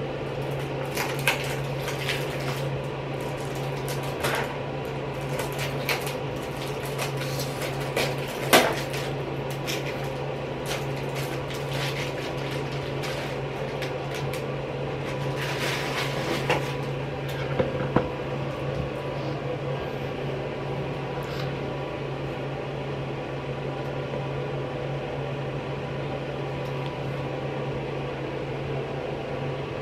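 A steady low hum runs throughout, under scattered crinkles, clicks and taps from a cardboard pregnancy-test box and its wrapper being opened and handled, which stop a little past the middle.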